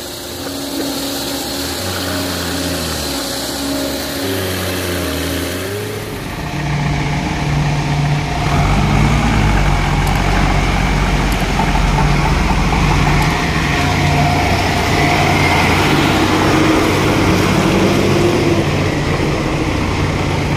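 JCB 3DX backhoe loader's diesel engine working the front loader, its revs rising and falling as the bucket lifts and tips sand into a dump truck. About six seconds in the sound changes suddenly, and the engine then runs steadier and louder.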